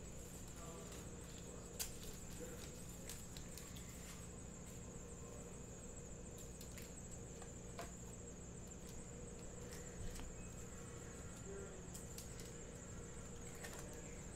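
Quiet room tone with a steady high-pitched whine, and a few faint clicks and crinkles from foil trading-card packs being handled and set into their box.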